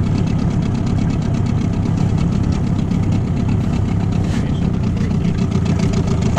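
Outboard motor running steadily at low trolling speed, a loud, even engine hum with a rapid regular ticking beat.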